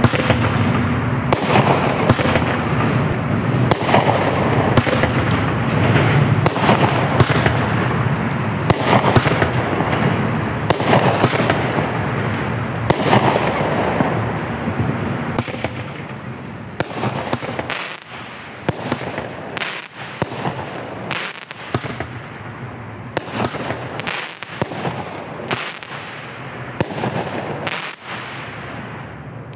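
Black Cat Picnic Pack firework cakes (three six-shot cakes) firing their aerial shots. For about the first half there is a dense, continuous run of bangs and crackle. After that come separate shots about once a second, quieter than before.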